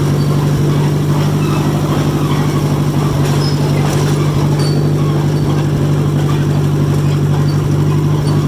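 John Deere 1010 crawler's carbureted engine running steadily, a constant loud low drone with a rapid firing pulse beneath it.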